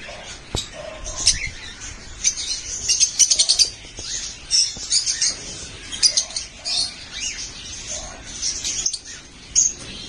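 Masked lovebirds chirping, a steady stream of short, high, shrill calls with a quick run of them about three seconds in.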